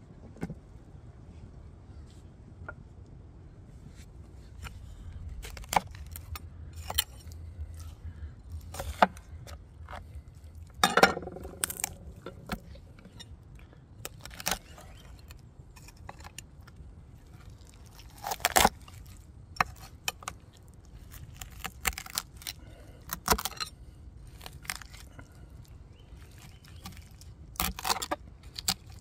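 Large kitchen knife chopping and cutting a raw rabbit into pieces on a wooden cutting board: irregular sharp chops and knocks as the blade strikes through bone onto the board, a dozen or so spread out, with a few louder strikes.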